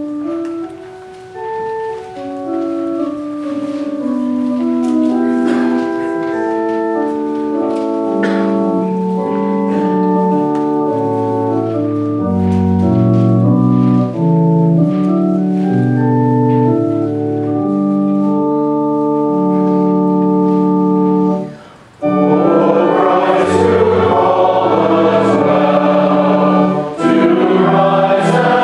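Church organ playing held chords, a hymn introduction; it breaks off briefly about 22 seconds in, and then a congregation starts singing the hymn with the organ.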